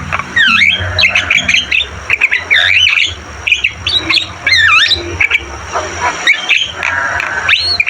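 Javan myna calling in a fast, nonstop string of harsh squawks and quick whistled swoops that dip and rise in pitch.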